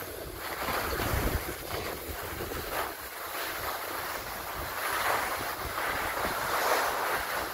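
Wind rushing over the microphone while riding downhill, mixed with the hiss of sliding over packed snow. The noise swells and fades.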